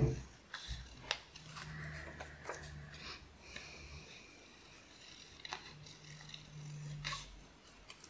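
Scissors cutting through thin printed card: a handful of separate snips with pauses between them.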